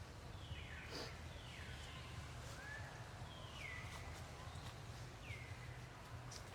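A series of about five short animal calls, each sliding down in pitch, over a steady low rumble with a few faint clicks.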